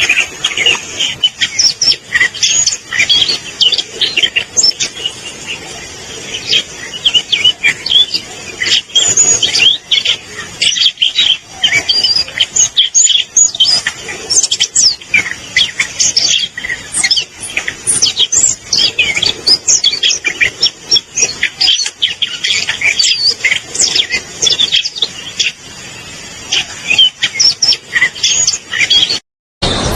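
Siberian rubythroat singing a long, varied warbling song of rapid chirps and whistles, broken by a brief gap about a second before the end.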